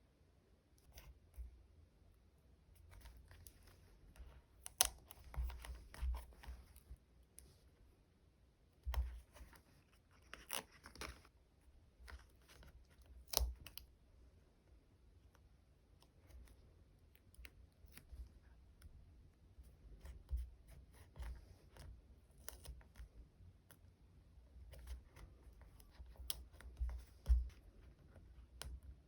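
Close-up desk sounds of diary decorating: stickers peeling off their sheets and plastic sticker packaging crinkling, in scattered short rustles, with small clicks and taps.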